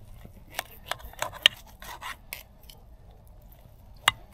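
Knife and fork cutting a grilled steak on a metal plate: a run of short scrapes and clicks as the blade saws through the meat and catches the plate, then a quiet stretch and one sharper click near the end.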